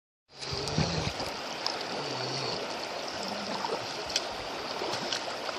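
River water running: a steady rushing hiss that starts just after the beginning and holds level throughout.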